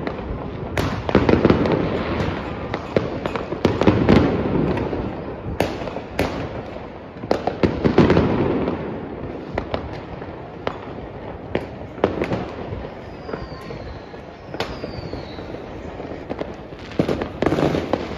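Fireworks going off continuously in many places: overlapping bangs and crackles, densest about a second in and again around four and eight seconds. A few falling whistles come in the second half.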